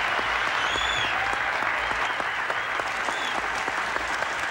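Large crowd applauding steadily, a dense patter of many hands clapping, easing slightly near the end.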